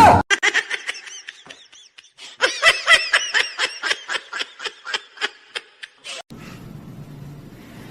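A person laughing hard in quick, repeated high-pitched bursts that stop abruptly about six seconds in, leaving a faint steady background noise.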